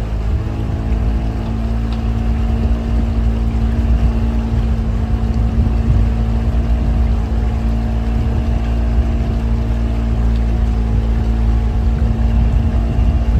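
A small boat's motor running steadily at an even pitch under way, with a low rumble beneath it.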